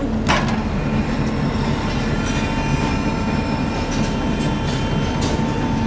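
Pinch plate rolling machine running as its rolls feed the plate through to form a cone: a steady motor and gear hum, with a sharp click about a third of a second in and a few fainter clicks later.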